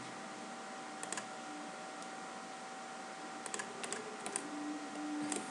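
A few short computer clicks, singly and in pairs, over a faint steady electrical hum.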